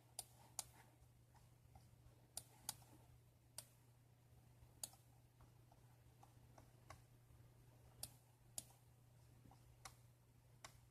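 Faint computer-mouse clicks, about a dozen, scattered singly and in quick pairs, over a low steady hum.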